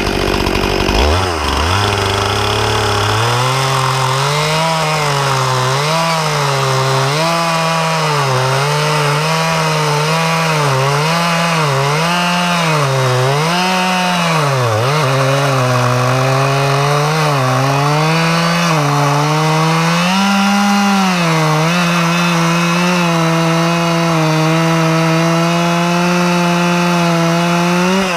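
Stihl MS 261 C-M two-stroke chainsaw revving up and cutting into a log, its engine pitch dipping and recovering again and again as the chain loads up in the wood. It runs steady at high speed for the last several seconds, then the throttle is released at the very end.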